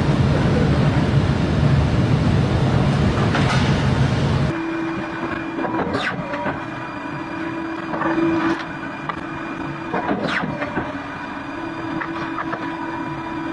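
Factory machinery running: a loud, dense rumbling noise for the first few seconds, then, after a sudden change, a quieter steady mechanical hum broken by a few sharp clanks.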